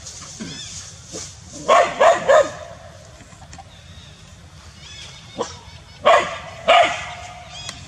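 Dog barking at a monkey in the tree above it: three quick, loud barks about two seconds in, then a fainter bark and two more loud barks near the end.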